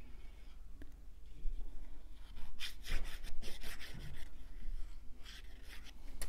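Plastic fine-tip glue applicator scratching along cardstock as glue is laid on the stripes of a paper flag, with the card rubbing in the hands: bunches of short scratchy strokes, thickest around the middle and again near the end.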